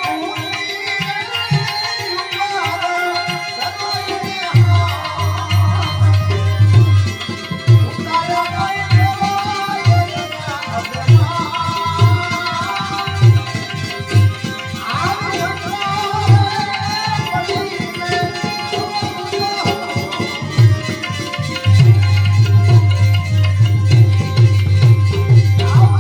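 Gujarati bhajan music: tabla playing a steady rhythm under a wavering melody line, with fast drum rolls about five seconds in and again through the last four seconds.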